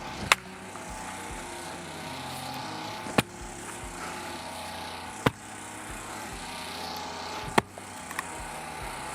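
Four sharp blows of an axe striking firewood while splitting it, a couple of seconds apart, some pieces not yet dry enough to split cleanly. A steady low drone sits underneath.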